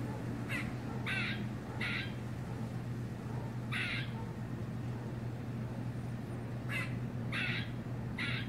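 Squirrel giving short, rough barking alarm calls, seven in all at uneven gaps, some close together in pairs, over a steady low hum.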